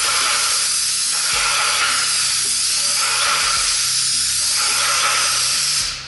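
Dino Power 6555 airless paint sprayer's spray gun hissing as it atomises liquid onto a wall in one continuous spray, which cuts off near the end.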